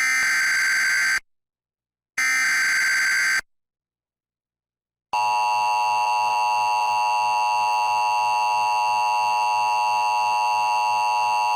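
Emergency Alert System tones: two short buzzing digital data bursts a second apart, then, about five seconds in, the long steady two-tone EAS attention signal begins.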